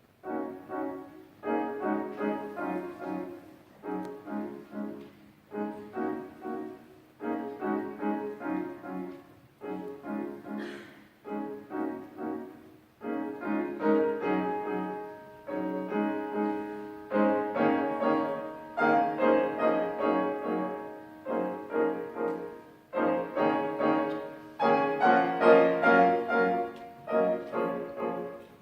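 Solo piano music: phrases of chords struck about every one and a half seconds, each ringing and dying away, growing louder about halfway through.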